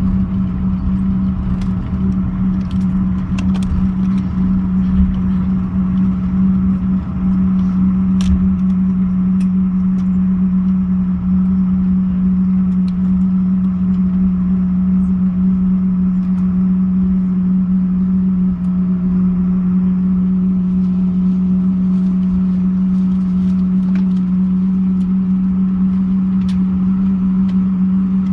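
Cabin noise inside a Boeing 777-200ER airliner: a steady engine hum with a strong low drone and rumble, and a few light clicks and rattles from the cabin.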